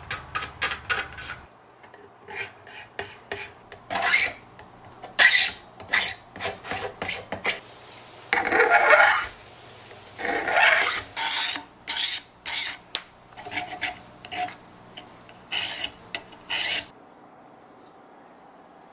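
Steel card scraper shaving a 3D-printed plastic part, throwing off curled shavings. It starts with a quick run of short strokes, about five a second, then settles into single scraping strokes one or two a second, one of them longer and drawn out. The scraping stops shortly before the end.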